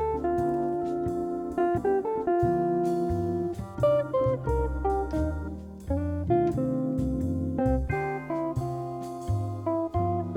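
Background music led by a plucked guitar, with a bass line and notes changing about every second.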